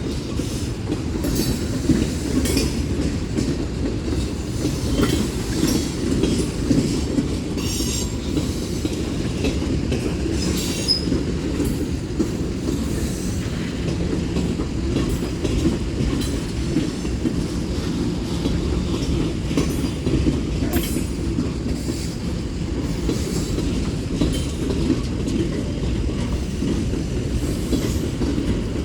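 Freight cars of a Union Pacific manifest train rolling past: a steady low rumble of steel wheels on the rails, with scattered clicks.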